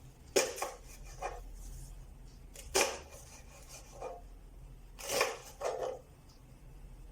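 Big kitchen knife slicing through leeks onto a cutting board: a handful of separate cuts at uneven spacing, each a short crunchy stroke.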